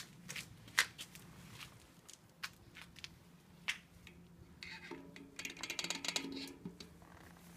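Metal clicks and clinks of a bicycle cassette and its parts being handled and fitted onto the wheel's hub, with a spell of rapid clicking and ringing about five seconds in.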